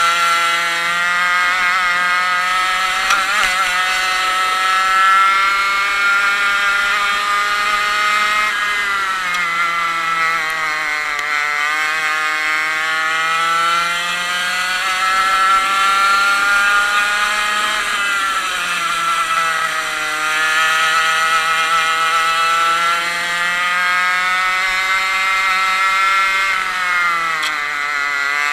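A 100cc two-stroke kart engine at racing revs, heard onboard. Its high-pitched note falls three times as the kart slows for corners and climbs again each time it accelerates out.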